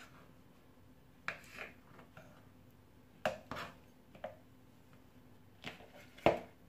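A kitchen knife knocking on a wooden cutting board as mini mozzarella balls are cut into quarters: a handful of short, sparse knocks, the loudest near the end.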